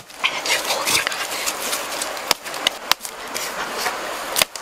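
Steady outdoor background hiss, broken by a few sharp clicks, two of them a little over two seconds in and one near the end.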